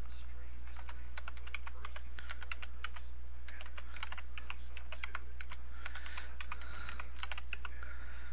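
Typing on a computer keyboard: a run of irregular keystroke clicks, over a steady low electrical hum.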